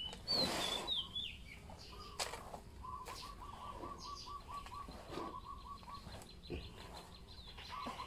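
Hands scooping and turning a damp mix of duckweed and rice bran in a large tub, with a rustle loudest about half a second in. Small birds are chirping around it, with a rapid trill of short notes from about three seconds in.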